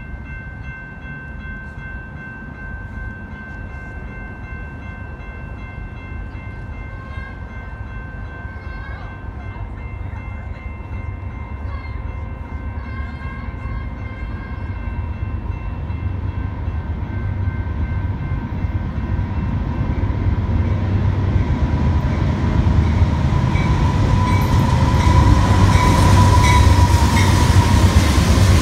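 Intermodal freight train's diesel locomotives approaching, the low rumble growing steadily louder until the lead units pass close by near the end. A train horn chord sounds held tones over the rumble.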